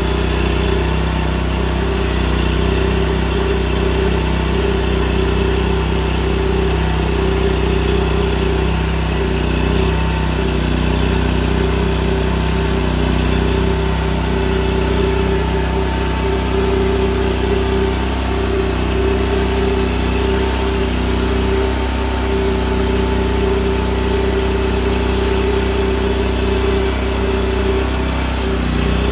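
Big Red XP bandsaw sawmill running steadily under load, its engine holding an even note while the band blade cuts lengthwise through an oak log.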